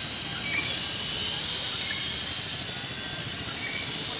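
Small quadcopter drone's propellers and motors buzzing steadily in flight, a high-pitched whine.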